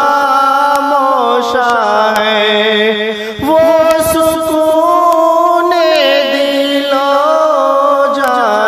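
Solo voice reciting an Urdu naat, drawing out long, wavering held notes without words. The pitch moves to a new held note about three and a half seconds in, and shifts again near seven seconds.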